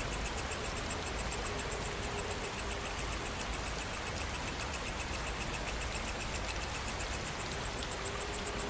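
Steady rain with a low rumble underneath, and insects chirping in a rapid, even rhythm over it.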